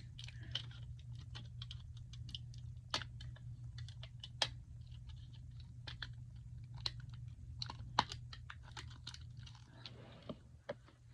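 Fingers working at a squishy toy's plastic packaging: irregular small crinkles and clicks, with a few sharper snaps at about three, four and a half and eight seconds.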